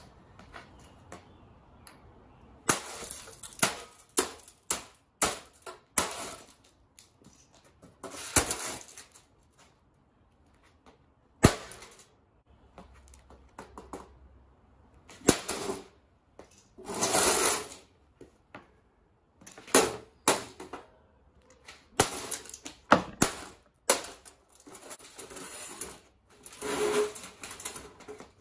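A VCR's plastic and metal casing being smashed by repeated, irregular blows. Some blows are followed by about a second of crunching as the case breaks up.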